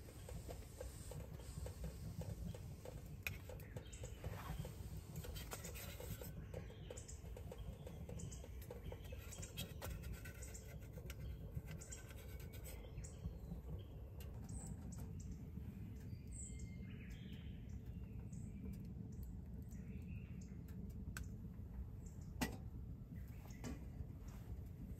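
Light clinks and scrapes of metal camp cookware being handled, with a couple of sharper knocks, over a low steady rumble; birds chirp faintly now and then.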